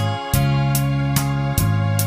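Instrumental hymn accompaniment: held chords over a steady beat ticking about every 0.4 s, with the chord changing just after the start and again about a second and a half in.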